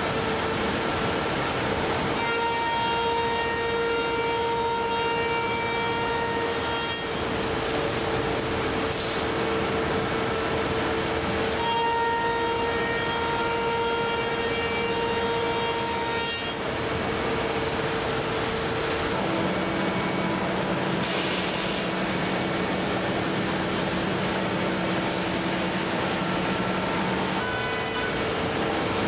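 Busellato JET Optima CNC router's spindle running and routing wooden cabinet-door stiles and rails, a steady whine whose pitch changes every few seconds as cutting passes start and stop. Two short hisses break in, one about a third of the way through and one about two thirds.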